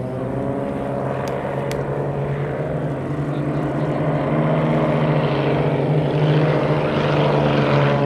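Propeller aerobatic planes flying in formation: a steady piston-engine drone that grows louder as they come closer.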